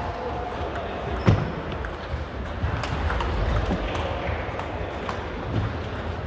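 Table tennis rally: the plastic ball clicking off the rubber bats and the table in quick exchanges, with the sharpest knock about a second in.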